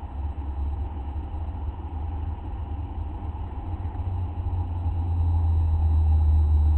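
Steady low rumble under a faint hiss, growing louder about five seconds in.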